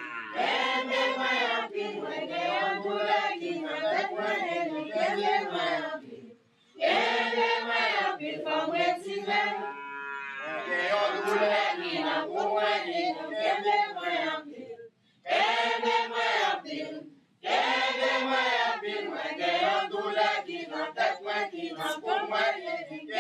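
A group of voices singing a song together, in phrases broken by brief pauses.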